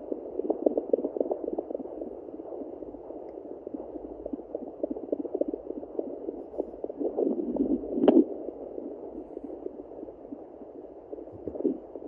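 Sonoline B handheld fetal Doppler's speaker relaying pulsing, whooshing heartbeat sounds from a pregnant Yorkshire terrier's belly, read by the device at about 122 to 125 beats a minute, over scratchy probe noise. A single louder knock comes about eight seconds in.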